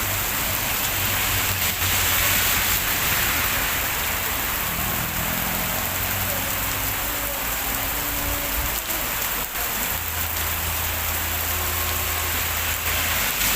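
Heavy rain pouring down steadily onto surfaces, a dense, even hiss.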